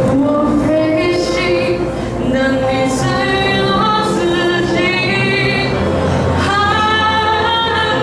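A girl singing into a microphone over instrumental accompaniment, holding a long note near the end.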